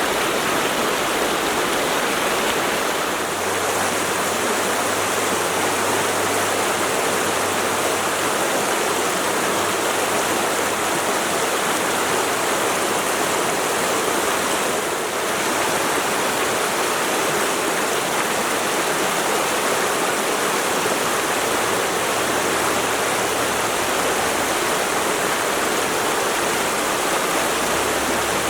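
Mountain stream rushing over rocks: a steady, full water noise.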